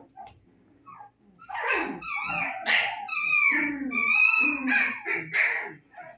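A litter of 25-day-old husky puppies squealing and yipping while they wrestle, a run of high-pitched cries starting about a second and a half in.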